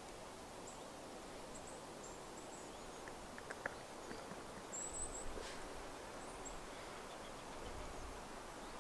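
Faint woodland ambience: a steady hiss with a few short, high bird chirps scattered through it, a couple of light clicks about three and a half seconds in, and brief low rumbles around five and eight seconds in.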